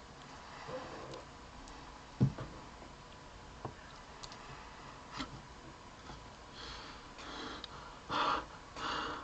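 Quiet room sounds: one sharp knock about two seconds in, a few faint ticks, and two short breaths near the end.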